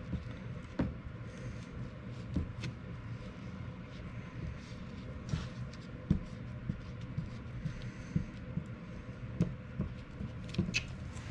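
Scattered light clicks and knocks of hands handling tools and a part at a workbench, over a steady low hum.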